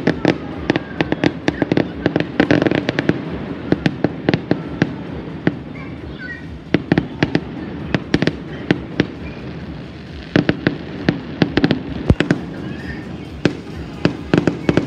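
Fireworks going off all around in quick succession: a dense run of sharp bangs and crackles over a continuous rumble, thinning briefly around the middle.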